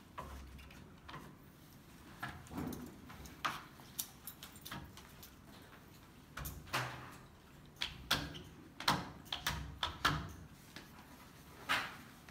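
Short, irregular scrapes and squeaks of a hand squeegee worked along smart film on a glass panel, pressing the film down against the glass.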